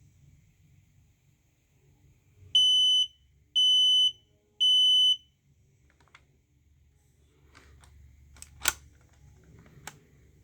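Smoke alarm sounding its test signal: three long, piercing beeps in the temporal-three pattern, about a second apart. A few sharp clicks follow near the end.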